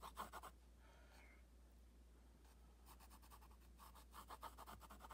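Graphite pencil sketching on paper: faint, quick scratchy strokes in two runs, a short one at the start and a longer one from about two and a half seconds in.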